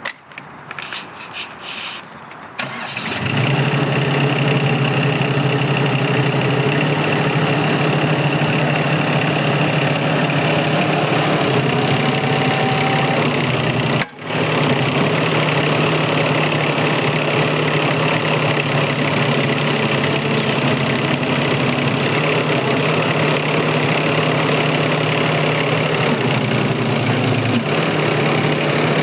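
A few clicks, then the Wacker Neuson ET20 mini excavator's diesel engine starts and runs steadily. The sound cuts out for an instant about halfway through.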